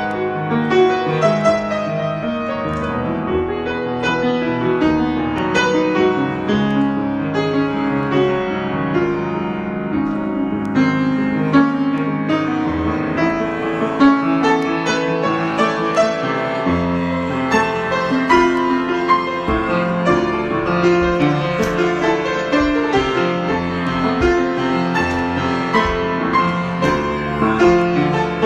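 Solo piano improvisation: a continuous run of many notes and chords, steadily moving without pause.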